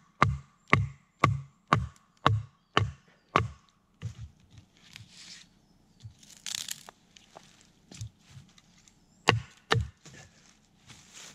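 Repeated sharp blows of a TOPS Bushcrafter Kukri 7.0 machete splitting knotty softwood: seven quick strikes, about two a second, each with a short ring. After that come scattered lighter knocks, bursts of rustling and two more sharp knocks near the end.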